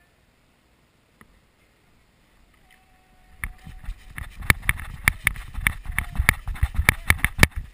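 Quick footsteps through dry leaf litter, with sharp rattling clicks at about four a second from the rifle and gear knocking with each stride, starting a few seconds in and stopping near the end.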